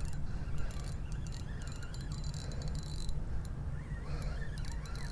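Wind rumbling on the microphone, with light irregular clicking and ticking from a spinning reel and rod being handled.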